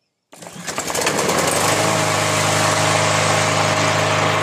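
Briggs & Stratton 675EX single-cylinder lawn mower engine starting on the first pull of the recoil cord just after a tune-up. It catches about a third of a second in, builds up within half a second and then runs steadily.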